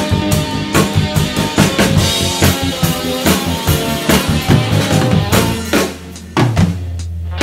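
Drum kit played in a medium-tempo rock groove, bass drum, snare and cymbals, over a rock play-along backing track. About five and a half seconds in the beat stops and a low note is held, with one more hit about a second later: the piece is ending.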